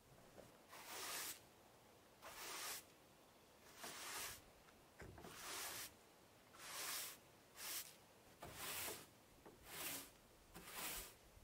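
Hand strokes rubbing across a wooden surface, about nine even hissing strokes with short pauses between, typical of hand-sanding or brushing a finish onto the grindstone's wooden base.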